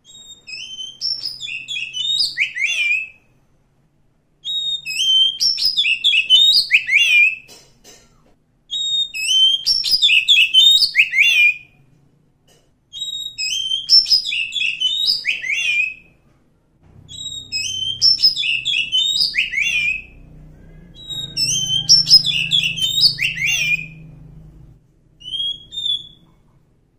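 Oriental magpie-robin singing: six phrases of about three seconds each, rapid varied notes sliding up and down, separated by short pauses, with one short extra note near the end.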